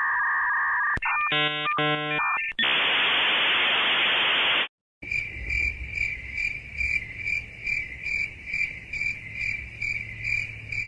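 A string of short sound effects: a held electronic beep, a brief run of stepping electronic tones, about two seconds of loud static hiss, then crickets chirping evenly, about two chirps a second, the stock 'awkward silence' crickets effect.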